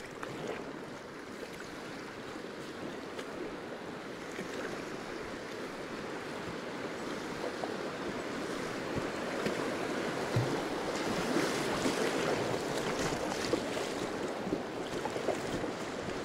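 Choppy river water rushing and slapping around a kayak paddled through waves, with occasional paddle splashes. The water noise grows louder through the second half.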